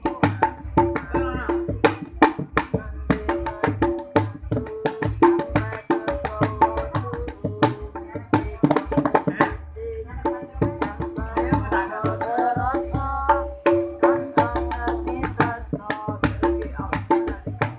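Gendang (Indonesian two-headed hand drum) played in a fast, busy rhythm, mixing deep bass thumps with sharper, higher slaps. A wavering melody line runs over the drumming.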